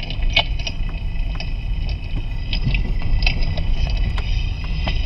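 Irregular clicks and crackles from a clamp-on chassis microphone on the front sway bar link, played through the speaker of a Steelman wireless ChassisEar receiver, over steady road rumble inside a moving car's cabin.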